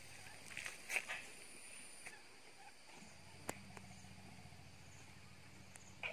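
Asian elephants rumbling: a faint, low, steady hum that starts about halfway through and carries on, after a few light crackles in the first second.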